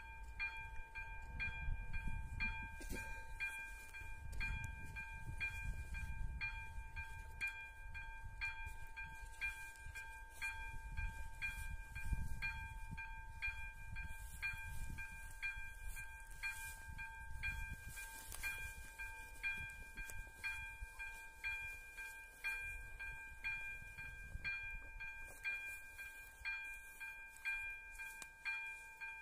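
Electronic ZV-02 bell of an AŽD 71 level-crossing warning signal ringing: a repeated electronic ding, about two strokes a second, sounding while the crossing's warning is active.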